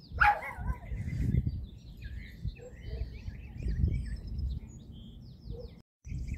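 Small birds chirping over a low rumbling noise outdoors, with a dog's bark right at the start. The sound cuts out briefly near the end.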